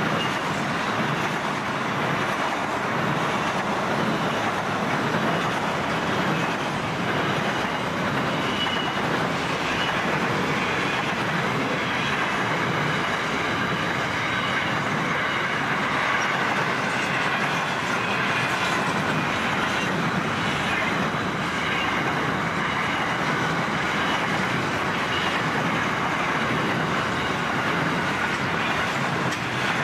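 Empty container flat wagons of a long freight train rolling steadily past, their wheels running on the rails with an even, unbroken noise.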